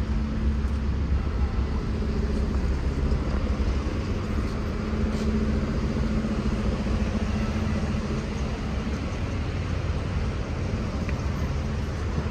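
Steady street traffic noise, mainly the low hum of car engines running nearby.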